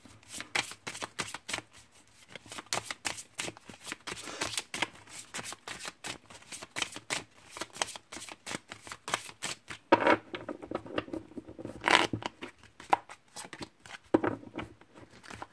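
A deck of oracle cards being shuffled by hand: a quick, continuous run of soft card flicks and slaps, with a few louder slaps about ten and twelve seconds in.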